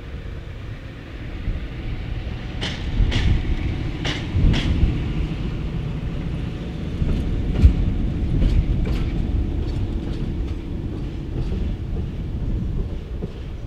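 Diesel shunting locomotive running light past on station tracks: its engine runs with a steady low sound while its wheels click over rail joints and points, a run of paired clicks from about two and a half to five seconds in and more around seven to nine seconds.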